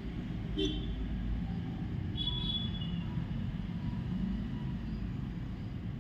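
Steady low background rumble, with a few faint high chirping tones about half a second and two seconds in.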